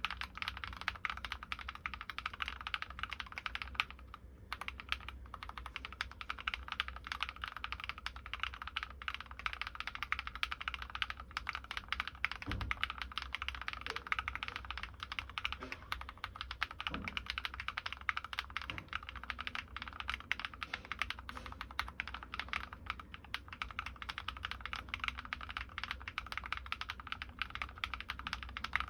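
Continuous fast typing on a Drop+OLKB Planck V6 ortholinear mechanical keyboard with lubed linear switches (MX Black housings, Kailh Red stems) and MT3 keycaps: a dense stream of keystroke clacks, with a short lull about four seconds in.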